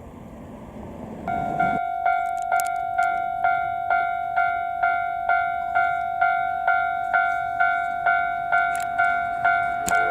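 Japanese level-crossing warning bell starting up about a second in and ringing steadily at about two strokes a second: the crossing alarm signalling that a train is approaching.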